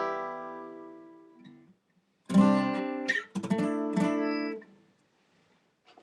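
Acoustic guitar strumming. A chord rings out and fades, then two more chords are strummed about a second apart and cut off abruptly, as the closing chords of a song.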